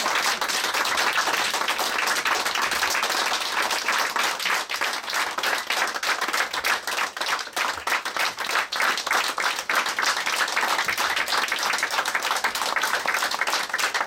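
Audience applauding, a steady, sustained round of many people clapping.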